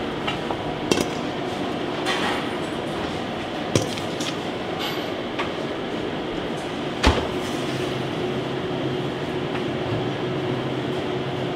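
Steady kitchen background noise with sharp clinks and knocks of a stainless steel mixing bowl being handled and set down on a stone counter, three in all, the loudest about seven seconds in.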